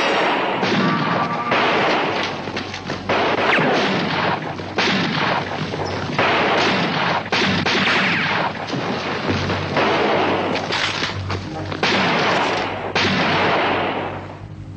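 Gunfire: many sharp shots at irregular intervals, some close together, over a background music score.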